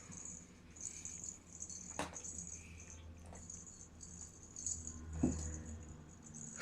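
Christmas stocking rattling and rustling as cats paw and pull at it, in repeated short crinkly bursts, with two sharp knocks about two seconds and five seconds in.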